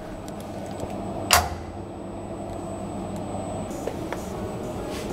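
Steady low hum with one sharp knock about a second and a half in.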